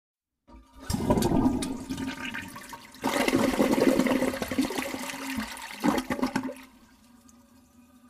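Toilet flushing, recorded very close: a rush of water that starts about half a second in, surges again about three seconds in, and stops shortly before the end, leaving only a faint hum.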